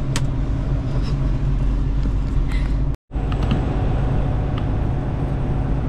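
Semi truck's diesel engine running steadily, heard inside the cab as a low rumble. The sound cuts out for an instant about three seconds in.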